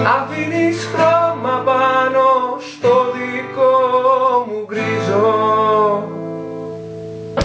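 Closing bars of a song: music with guitar, a gliding melody line in three short phrases over held chords, dropping in level about six seconds in.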